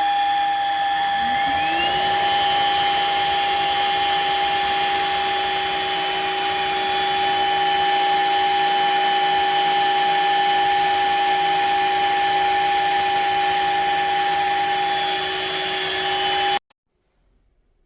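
Shark HydroVac wet-dry vacuum mop running with a steady whine. One tone rises in pitch and settles about two seconds in as a motor comes up to speed. It cuts off abruptly near the end.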